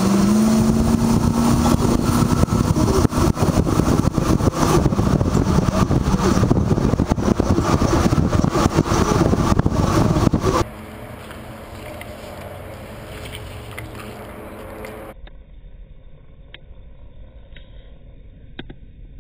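Loud wind and road noise of a van driving, picked up by a camera mounted on the van's side. About ten seconds in it cuts off suddenly to a much quieter outdoor background, with a few faint clicks near the end.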